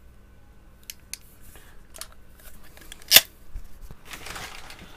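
Small clicks from a hand crimping tool being worked on a terminal crimp. One sharp, loud snap comes about three seconds in, followed by a short rustle as parts are handled.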